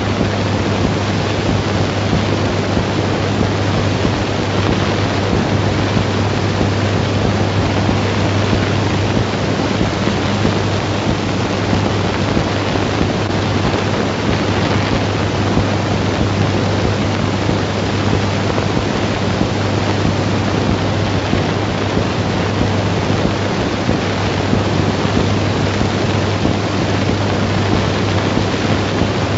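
Steady hiss of an old 1930s film soundtrack, with a low steady hum beneath it and no other sound.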